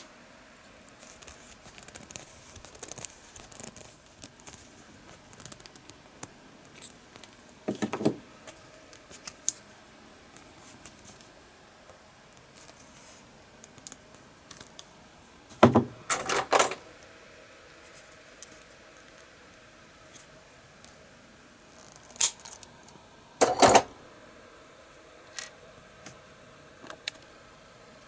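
Small tools and parts being handled on a workbench: scattered light clicks, taps and rustles, with a few louder clatters about a third of the way in, past the middle and near the end.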